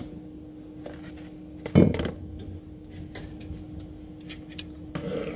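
A metal baking tray is handled and knocks once against the counter about two seconds in, with a few lighter clicks around it over a faint steady hum.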